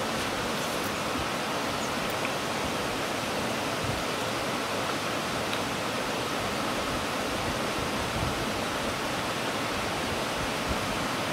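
Steady rush of flowing stream water, with a few faint clicks of mussel shells being handled.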